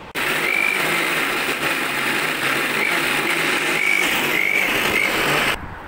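Preethi mixer grinder running at speed, grinding soaked urad dal and water into smooth batter in its stainless steel jar, with a few short high chirps over the motor noise. It starts abruptly and cuts off about five and a half seconds in.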